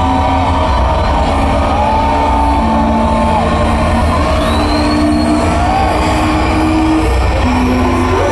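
Electronic show-opening music over a concert PA: held synth notes that step from pitch to pitch over a heavy, steady bass rumble. Audience whoops and whistles glide over it, one high whistle about halfway through.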